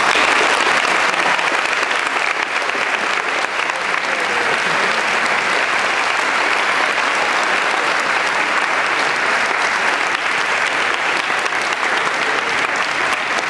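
Large audience applauding, a dense, steady clapping that starts suddenly and holds at an even level.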